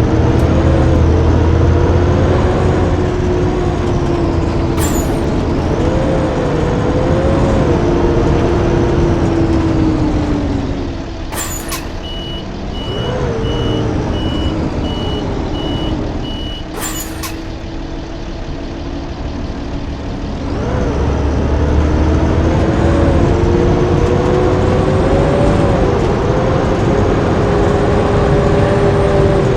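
Blue Bird D3FE bus's diesel engine and drivetrain running under way, with a whine that rises and falls with the gears. It eases off about ten seconds in. Two short sharp air hisses come about six seconds apart, with a string of evenly spaced beeps between them. The bus then pulls away again with the engine building about twenty seconds in.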